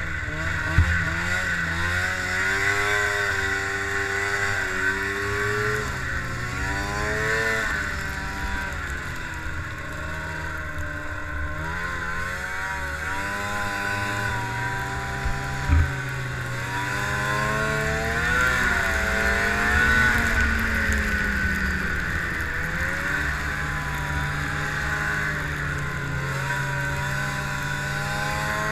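Arctic Cat ZR 500 snowmobile's two-stroke engine running at speed, its pitch rising and falling repeatedly as the throttle is opened and eased off, over a steady hiss. Two brief knocks, about a second in and about sixteen seconds in.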